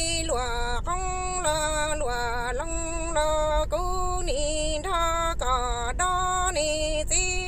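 A woman singing Hmong kwv txhiaj (sung poetry) solo. She holds a string of notes around one pitch, each about half a second long, with short dips and slides between them.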